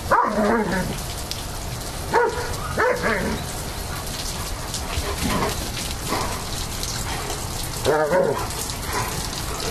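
German Shepherds barking in play, short barks every second or two, over a steady hiss of falling rain.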